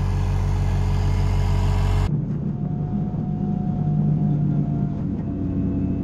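Fiat DT55-56 tractor's diesel engine running steadily as it pulls a two-row corn planter, getting louder as it approaches; about two seconds in the sound cuts to the same engine heard from on board the tractor.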